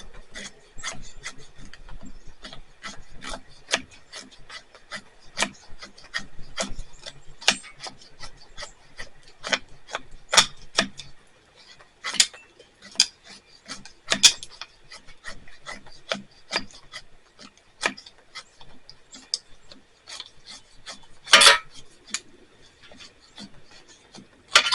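Knife blade scraping and shaving a stick of fatwood in short, irregular strokes, roughly one or two a second, with a longer, louder stroke near the end.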